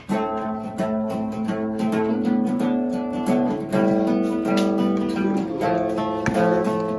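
Acoustic guitar being strummed, a run of ringing chords that change every second or so.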